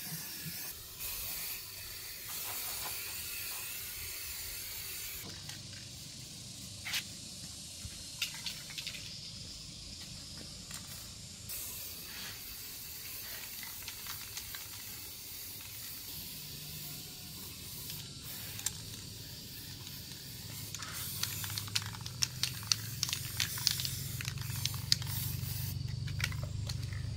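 Aerosol spray can hissing in repeated bursts as it is sprayed onto a motorbike, with a run of short sharp clicks near the end.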